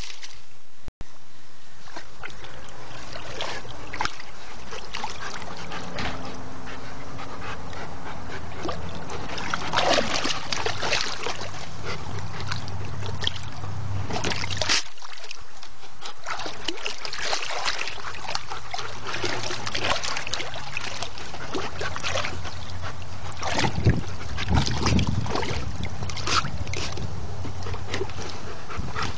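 A large dog splashing in a wading pool, water sloshing and dripping with short sharp splashes as he noses and bites for rocks on the bottom, over a steady low hum.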